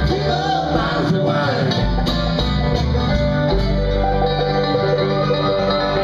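Live bluegrass string band playing: mandolin, banjo, acoustic guitar and upright bass together, with the notes held longer in the second half.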